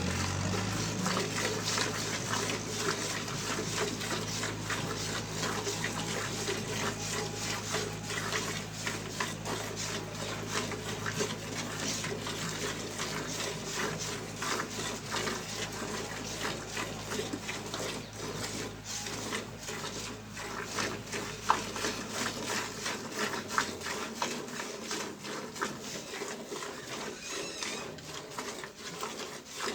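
Cow being milked by hand, with quick rhythmic jets of milk hissing into a pail. A low steady hum runs underneath and stops about three-quarters of the way through.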